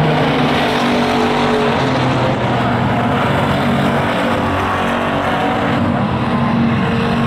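A pack of WISSOTA Street Stock race cars with V8 engines running hard together at racing speed, making a loud, steady engine noise.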